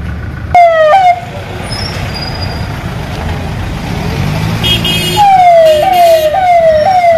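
Siren from a roof-mounted loudspeaker on an official SUV moving off. It gives a short double blast about half a second in, then from about five seconds a falling tone that repeats about twice a second, over low engine rumble.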